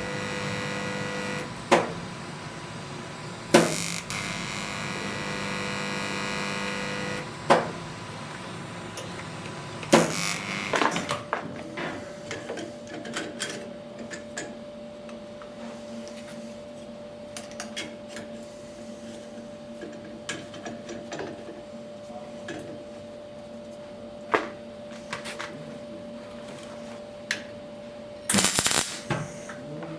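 Steady machine hum that changes pitch about a third of the way in, broken by a few sharp knocks and clicks.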